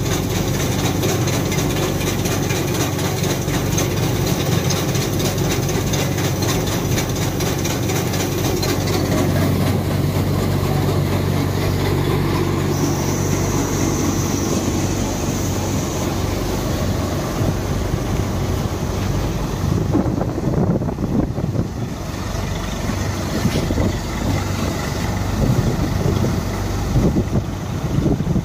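NVT multi-crop thresher driven by a tractor, running steadily: a constant low drone from the engine and the spinning threshing drum, with a rushing noise over it. In the last third it turns rougher, with irregular knocks and rustling as crop stalks are fed in.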